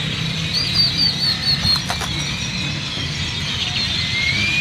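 A noisy chorus of many birds in the trees, with squealing chirps throughout, a quick run of repeated high notes about a second in, and rising calls near the end.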